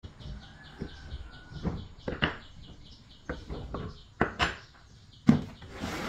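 Knocks and clatter of wooden parts being handled: a plywood planer jig holding an electric hand planer, with the planer's motor not running. The loudest knock comes about five seconds in, followed by a short scrape as the jig is moved.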